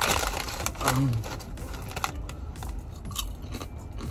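Close-up eating sounds during a mukbang: chewing with scattered crunches and crackles, and a short low hum about a second in.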